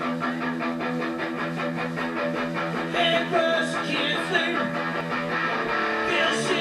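Garage punk band playing live, led by electric guitar chords with a quick, even pulse. It grows louder and busier about three seconds in, with sliding notes.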